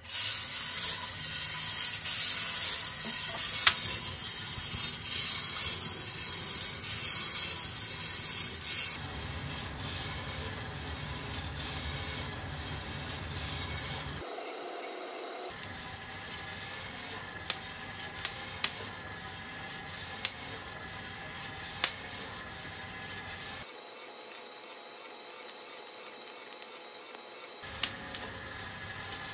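Coffee beans roasting in a motor-turned wire-mesh drum over a gas burner: the flame and the drum's gear drive make a steady hiss and whir. In the later part, single sharp pops ring out every second or two, the beans cracking as the roast reaches first crack and then second crack.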